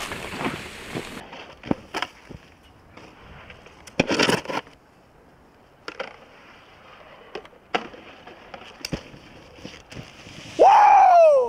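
A snowboard scrapes briefly across a snowy stair feature about four seconds in, with scattered clicks and knocks of the board around it. Near the end comes a loud shout from a bystander, falling in pitch.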